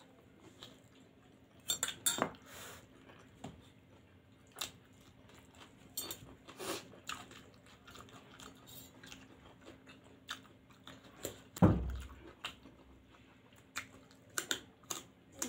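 Close-up eating sounds of two people chewing spicy pasta and paneer momos by hand: wet chewing and mouth smacks, with scattered light clicks and knocks against the bowls and table. There is one loud thump near twelve seconds in, over a faint steady hum.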